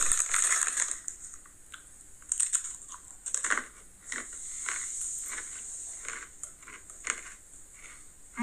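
Short, scattered crinkling and crunching noises: a snack bag being handled and crunchy pretzel snacks being chewed.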